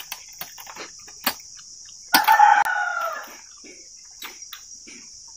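A rooster crows once, about two seconds in, a call of about a second that falls slightly in pitch. Under it runs a steady chorus of crickets, with scattered faint clicks.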